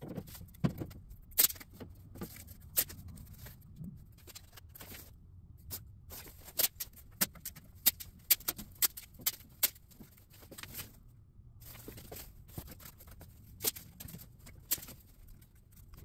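Irregular sharp clicks, taps and light knocks of hand work on a truck's front end, with parts and masking tape being handled.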